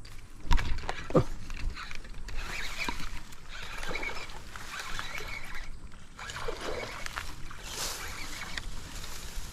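Bullzen Tomahawk baitcasting reel being cranked as a hooked snakehead is fought and reeled in, with water splashing and rod handling noise. Two sharp knocks near the start are the loudest sounds.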